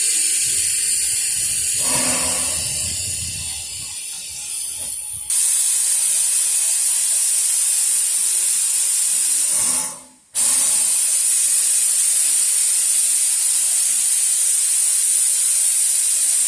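Steam locomotive hissing steam, a loud, steady high hiss. It jumps louder about five seconds in, breaks off for a moment around ten seconds, then resumes.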